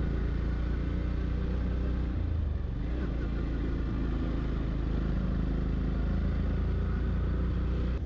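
Yamaha FZ-X's 149 cc single-cylinder engine running steadily while the bike is ridden, under a steady rush of riding noise.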